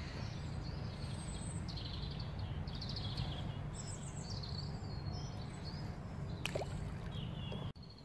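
Riverbank ambience: a steady low rumble with small birds chirping a few times in high, quick calls in the first half, and a faint click near the end.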